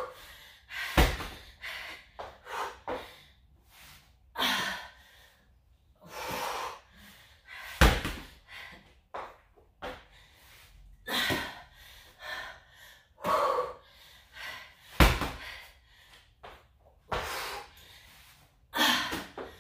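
A rubber slam ball thrown down hard onto a rubber gym floor three times, about seven seconds apart, each landing as a heavy thud. Between the slams there are hard, gasping breaths of exertion.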